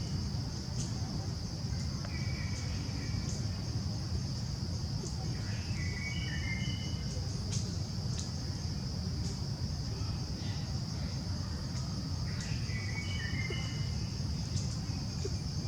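Insects shrilling in one steady high drone, with short high calls breaking in every few seconds, over a constant low rumble.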